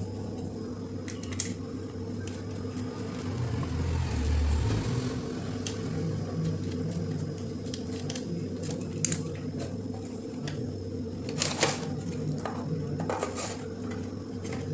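Scattered light clicks and knocks from hands working loose the circuit board inside the opened plastic housing of a rechargeable LED emergency light, over a steady low hum.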